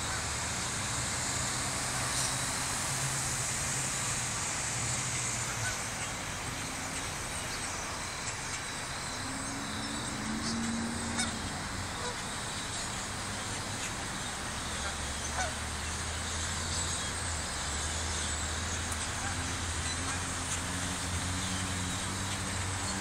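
A huge flock of birds roosting in trees, thousands of them calling at once in a dense, steady din, with a car engine running low underneath.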